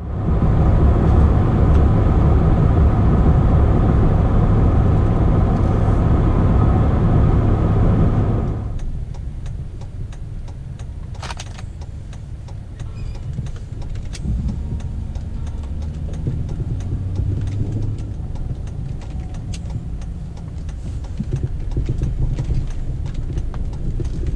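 Engine and road noise heard from inside a moving truck. It is loud and steady with a hum for the first eight seconds or so, then drops suddenly to a quieter, lower running.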